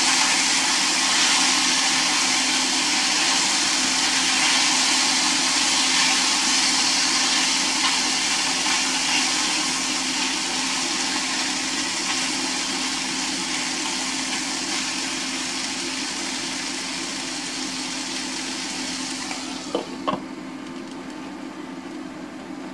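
Sliced shiitake mushrooms sizzling steadily in an oiled frying pan as they are stirred. About twenty seconds in, a glass lid goes on with a couple of light clinks, and the sizzle drops to a quieter, muffled hiss.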